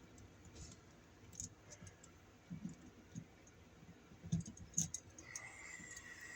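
Faint scattered clicks and small knocks of a hand tool working a short black electrical wire, stripping a little more insulation off it. A faint steady high tone comes in about five seconds in.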